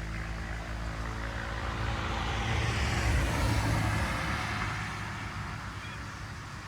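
KTM 690 SMC-R's single-cylinder engine through a LeoVince Nero slip-on exhaust with cat and dB-killer, passing by: it grows louder to a peak about three seconds in, then fades as the bike moves away.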